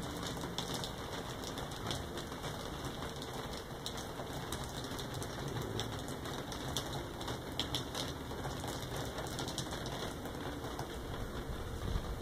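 Light rain falling: a steady hiss with scattered ticks of drops.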